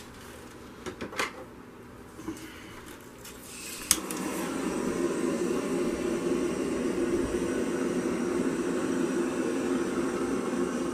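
Handheld butane torch clicked alight about four seconds in, then a steady hissing flame played over the wet acrylic paint to pop bubbles and bring up cells.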